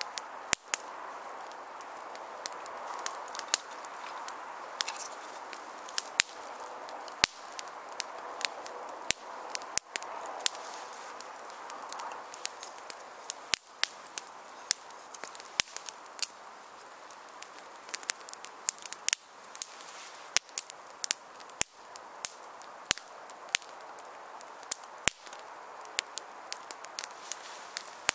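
Small kindling fire of split sticks and conifer twigs crackling as it catches: many sharp, irregular pops over a steady hiss.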